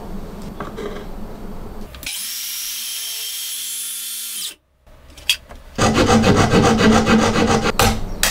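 A Makita cordless circular saw runs with a high whine while cutting a slot in plywood, then stops abruptly. A few seconds later a fine-toothed hand saw makes rapid rasping back-and-forth strokes, louder than the circular saw, as it trims a glued-in wooden spline flush with the joint.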